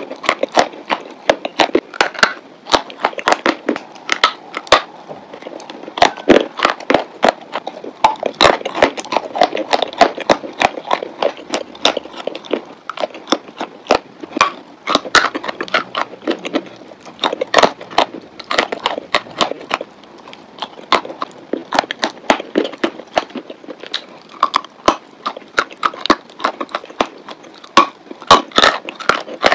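Close-up crunching and crackling of chalk being bitten and chewed in the mouth, with many sharp, irregular crackles throughout.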